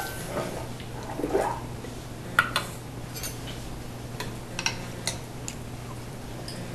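A few light, scattered clicks and taps of cutlery against dishes, over a faint steady hum.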